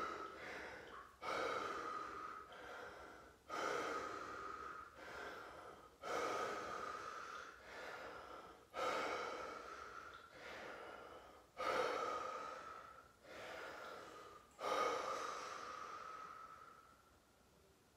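A man breathing deeply and forcefully while sitting in an ice bath: a sharp, loud intake, then a long breath out, repeating about every two to three seconds, and dying away near the end.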